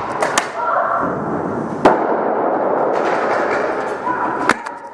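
An airsoft Thunder B sound grenade going off with a single sharp bang about two seconds in. A few other short sharp cracks come near the start and near the end.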